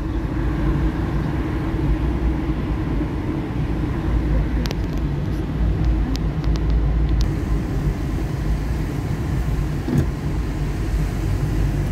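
Steady road noise inside a moving car's cabin: a low rumble from the engine and the tyres on a wet road. A few light clicks come about five seconds in.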